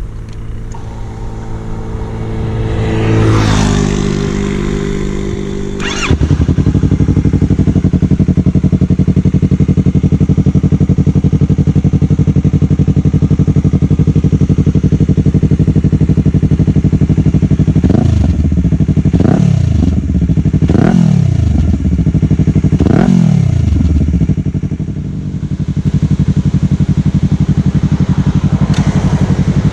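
2021 Yamaha R3's parallel-twin engine through an Akrapovič muffler being revved. There is one rise and fall in revs a few seconds in, then a sudden step up to loud, steady running. Past the middle come four quick throttle blips in a row, then a short dip before the steady running resumes.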